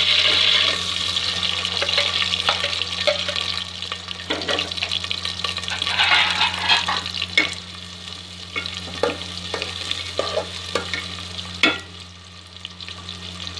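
Chopped onions frying in hot oil in a steel pot: a loud sizzle in the first second, then a metal spatula stirring and scraping against the pot with repeated clicks while the frying sizzle goes on more quietly.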